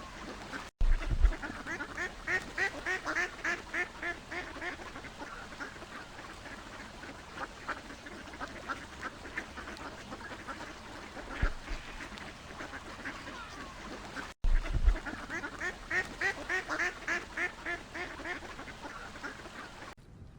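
Ducks quacking, many calls in quick runs of several a second, broken off by two short edits after which the calling starts again.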